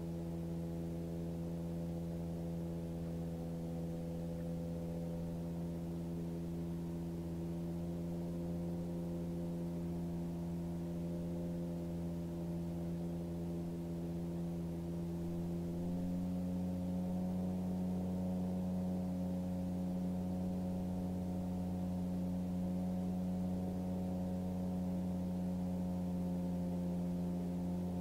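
Titan Tornado light aircraft's engine droning steadily in the cockpit, muffled so that only its low tones come through. About two-thirds of the way in its pitch steps up slightly and it gets a little louder, as the revs rise.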